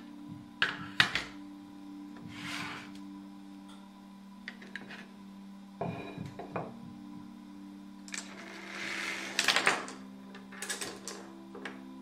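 Scattered taps, clicks and short scratchy strokes of hand work with painting tools, the loudest click about a second in and a longer scratchy stretch near the end, over a steady low hum.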